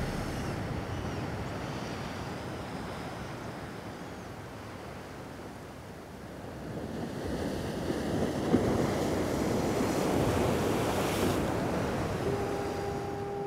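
Small ocean waves washing up on a sand and cobble beach, with some wind on the microphone; the wash dips, then swells louder about halfway through as a wave runs up the shore. A steady held tone comes in near the end.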